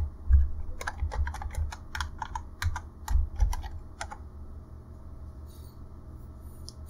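Computer keyboard typing: a quick run of keystroke clicks for about four seconds, then it stops.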